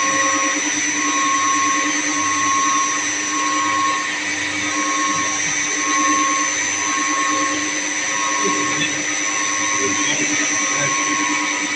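Electric pump motors running steadily in a chilled-water plant room: a constant hum and whine with several held tones, and a higher tone that pulses on and off about once a second. A few faint knocks come in the second half.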